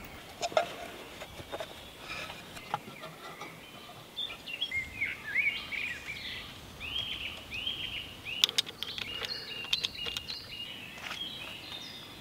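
Songbird singing: short repeated phrases of rising and falling chirps, starting about four seconds in, over an outdoor background. A few sharp clicks and knocks stand out, the loudest near the start and about two-thirds of the way through.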